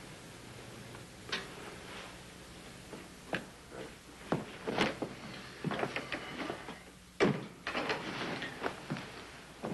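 Footsteps and a door being handled: scattered knob and latch clicks and light knocks, with one loudest sharp knock about seven seconds in, over a faint steady hum.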